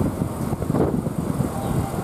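Keihan Main Line electric train running at the platform, a steady low rumble of wheels on rail.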